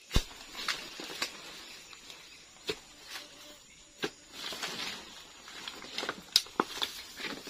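A steel rebar bar jabbed and levered into the base of a giant swamp taro (palawan) clump: irregular sharp knocks and cracks, the sharpest just after the start and about six and a half seconds in, amid rustling of stalks and leaves.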